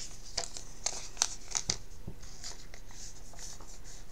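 2011 Panini Elite football cards being handled and flipped through by hand: a few light snaps and slides of card against card in the first two seconds, then a soft rustle.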